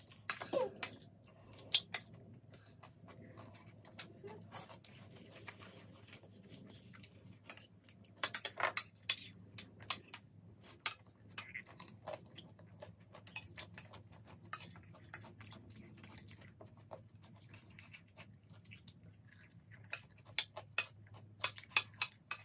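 Metal spoons clinking and scraping on ceramic plates of chatpate, mixed with crunchy chewing of the puffed-rice snack. The clicks come in clusters, busiest about a second in, around eight seconds in and near the end.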